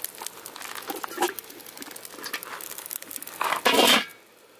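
Foil packets crinkling on the grate of a small charcoal kettle grill, with scattered light clicks, then the grill's metal lid scraping and clanking into place about three and a half seconds in.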